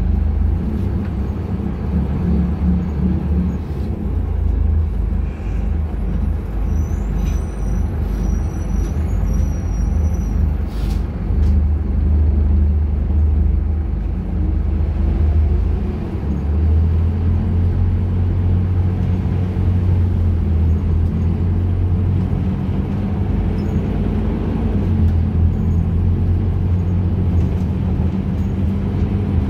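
Cabin noise of a Caio Millenium BRT bus on a Scania K250UB chassis under way: the rear-mounted diesel engine and drivetrain run with a steady low hum, its pitch shifting a few times as the bus changes speed. A few short high beeps sound about a quarter of the way in.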